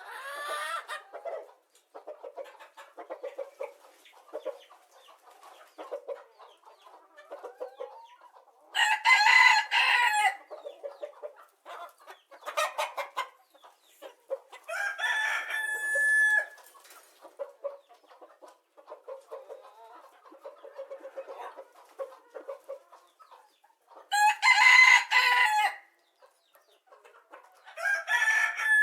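Animal calls: a loud, drawn-out pitched call comes about every six to nine seconds, four times, with soft, rapid short calls in between.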